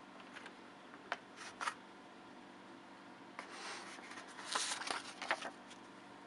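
Readson Kananic TK-1 mechanical keyboard being handled: scattered clicks and rubbing, with a denser cluster of clicks and scraping about three and a half seconds in.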